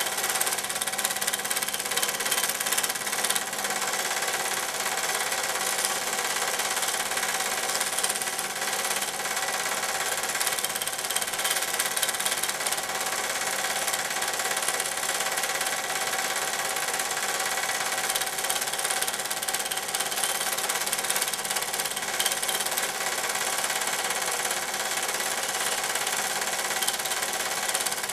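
Film projector running, a steady mechanical whirr and clatter with no change throughout.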